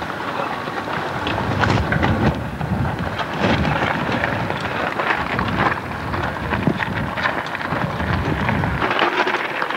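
Mountain-bike tyres crackling over a loose gravel trail as riders pass close by, mixed with low rumbling wind on the camcorder microphone.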